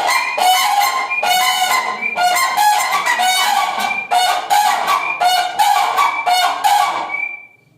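A crane calling: loud, trumpet-like honking notes in a rapid run of about three a second, which stops near the end.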